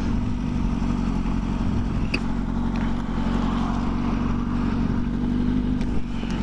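Motorcycle engine idling steadily at a standstill, its low note holding one even pitch.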